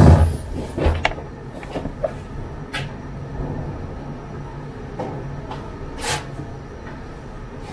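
A chair shifting as someone stands up at the start, then scattered light knocks and clicks of someone moving about and handling things in the room, over a steady low hum.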